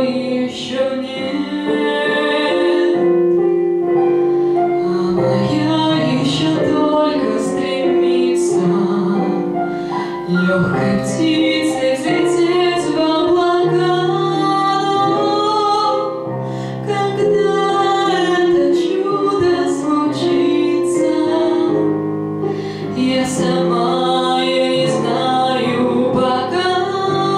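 A woman sings a slow Russian pop ballad with piano accompaniment, holding long notes.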